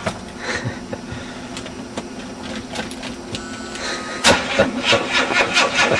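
Car starter cranking the engine, a fast even chugging of about five beats a second that begins about four seconds in, after a few quiet clicks and a brief tone. The engine's crankcase holds used deep-fryer oil instead of motor oil.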